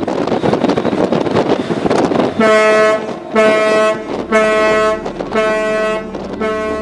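A loud rush of wind and sea noise, then a ship's horn sounds five short blasts about a second apart, each a single steady tone. Five short blasts is the danger or doubt signal that a ship sounds at another vessel whose intentions are unclear.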